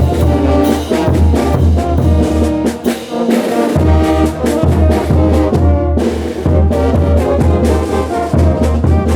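Bolivian brass band playing carnival dance music: trumpets and trombones carrying the melody over a pulsing bass drum beat with cymbal strokes. The drum drops out briefly about three seconds in.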